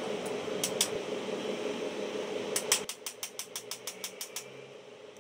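Light metal clicks: two near the start, then a quick run of about a dozen, roughly seven a second, lasting under two seconds. Under them a steady hum stops abruptly about three seconds in.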